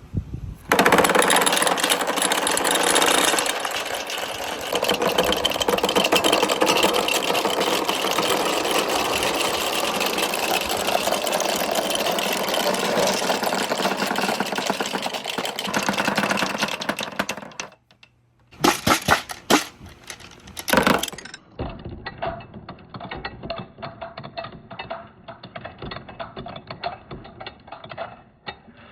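A large batch of balls clattering down a marble run course: a loud, dense rattle of many small impacts for about seventeen seconds. After a short break and a few loud bursts, it thins out into scattered clicks and rattles as fewer balls are left running.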